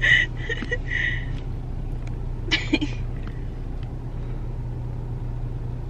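Thick strawberry milkshake sucked up through a plastic straw: a few short slurps in the first second and a half and one more about two and a half seconds in. A steady low hum of the running car lies under it.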